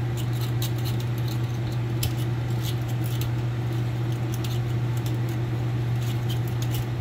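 Copper winding wire from a dryer stator being pulled and handled by hand: many small, irregular clicks and ticks over a steady low hum.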